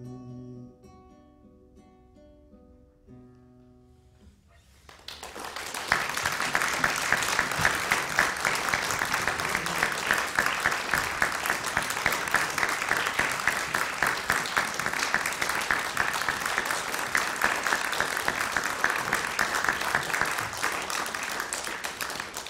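Acoustic guitar plays the last few notes of a song. About five seconds in, an audience breaks into long applause that stops near the end.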